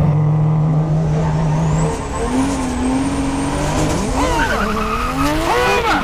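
Porsche 911's flat-six engine revving as the convertible speeds up. Tires squeal near the end as it swings in toward the cyclist.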